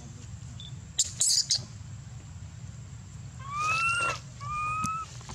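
Baby macaque crying with two clear whimpering coos, the first longer and rising, the second shorter and level: an infant's call for its mother. A brief scratchy rustle comes about a second in.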